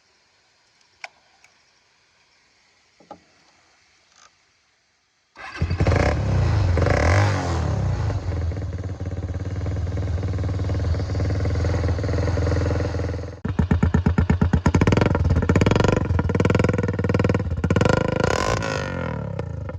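Bajaj Pulsar 220 single-cylinder engine through a straight-through custom exhaust with the catalytic converter and dB killer removed. The first seconds are quiet but for a few faint clicks. About five seconds in the engine starts and runs loud; a little past halfway it drops away for a moment, then comes back with a rapid, even exhaust pulse.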